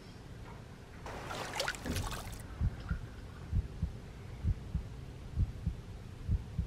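Film soundtrack sound design: a brief rushing hiss about a second in, then a low heartbeat-like thump about once a second.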